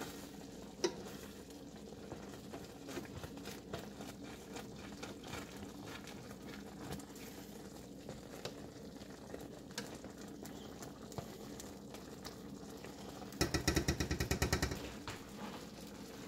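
Pasta and ground beef in a creamy sauce bubbling in a stainless steel skillet, with a spatula stirring and scraping the pan bottom to keep it from sticking. About thirteen seconds in comes a brief fast rattle, the loudest sound.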